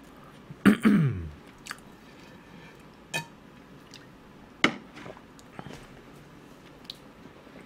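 A man drinking from a bottle of chocolate milk: a short falling vocal sound about a second in, then scattered soft gulps and clicks.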